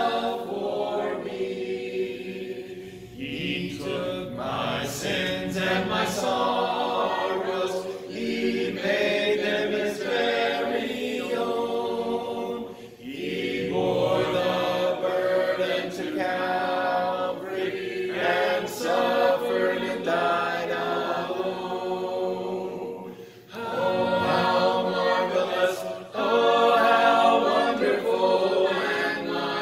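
A group of voices singing a hymn a cappella, with no instruments, in long phrases with short pauses between them.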